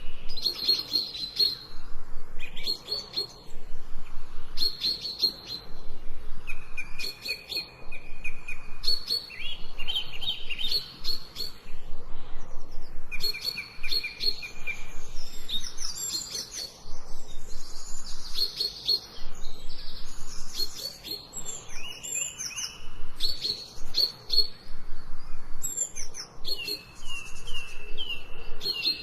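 Songbirds singing: short chirped and trilled phrases repeating every second or two, over a faint steady hiss of rain.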